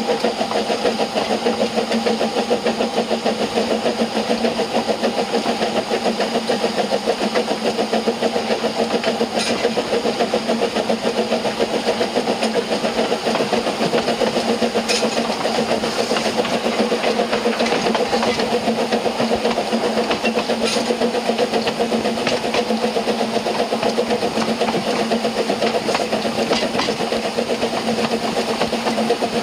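Narrow-gauge Double Fairlie steam locomotive no. 12 "David Lloyd George" working steadily at speed, its exhaust beating in a rapid, even rhythm together with the run of the train's wheels on the rails, heard from the carriage just behind the engine. A few faint clicks stand out now and then.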